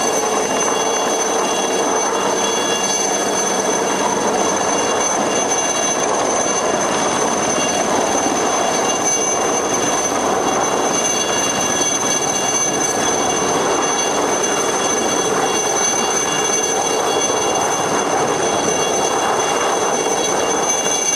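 Turbine helicopter running steadily in flight: a constant high whine over dense rushing rotor and engine noise.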